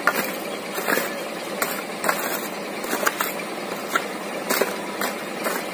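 Shovel scraping and knocking into dirt and stones in irregular strokes, roughly one every half second, over a steady engine noise.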